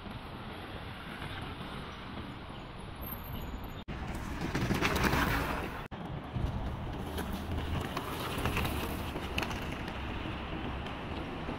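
Wind rushing over the microphone and road noise while a fat-tire electric mountain bike is ridden. The noise swells louder about five seconds in, and the sound cuts out for an instant twice.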